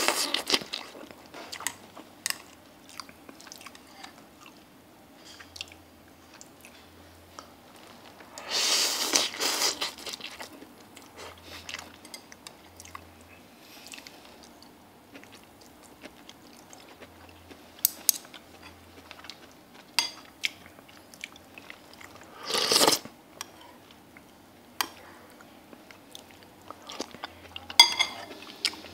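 Close-up eating sounds: chewing, with many short clicks of a metal spoon and fork against a bowl of noodle soup and three louder noisy bursts about a second long.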